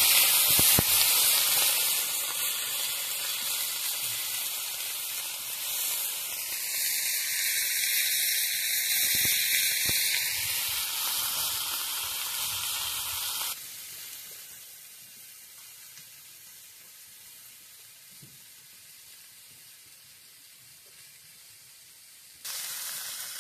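Small puti fish sizzling in hot oil in a shallow iron pan over a wood fire. The loud frying hiss eases off gradually, drops suddenly to a much quieter sizzle about halfway through, and comes back up right at the end.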